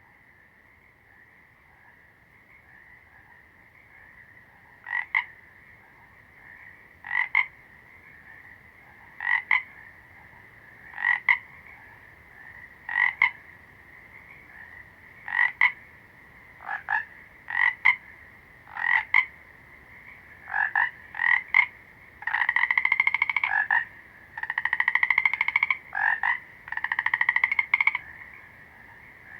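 A frog croaking in short loud calls about every two seconds, then in longer rapid rattling runs near the end, over a steady high-pitched trilling in the background.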